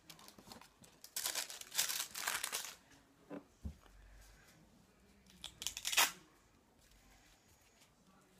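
Plastic packaging crinkling and tearing as a shin pad is unwrapped, in bursts over the first few seconds and again about six seconds in, with a couple of light knocks in between.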